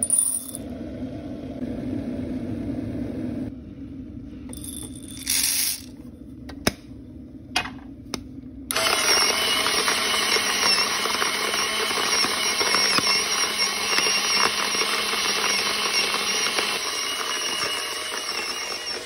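Electric coffee grinder grinding whole coffee beans: a steady, noisy whir that starts about nine seconds in. Before it there is a quieter hum and a few light clicks.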